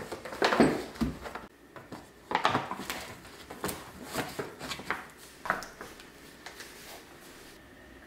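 Lunch-box containers being set down into a paper shopping bag: a run of light knocks from the boxes with the stiff paper of the bag rustling, dying away to room tone near the end.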